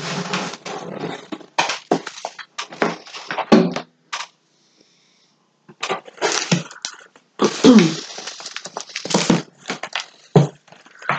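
Knocks, bumps and rustles of things being handled: an acoustic guitar being lifted off and set down, a glass lifted for a drink, and a book being picked up. The noises come in short, uneven clusters, with a brief lull about four seconds in.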